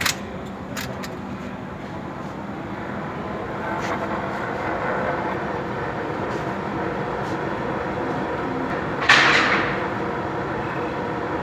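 Steady machine noise with faint humming tones, a few clicks at the start and a short burst of hiss about nine seconds in.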